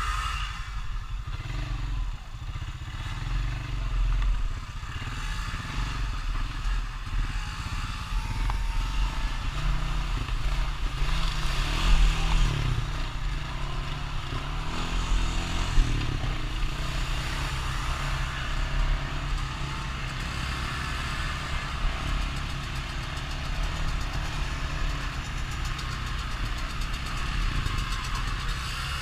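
ATV engine running, its revs rising and falling through the middle, with a couple of sharp knocks about halfway.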